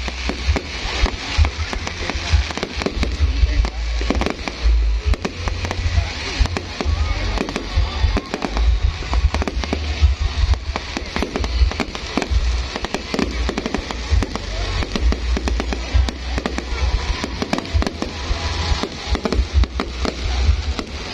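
Fireworks going off in rapid succession: a dense, unbroken run of bangs and crackles over a deep, steady rumble.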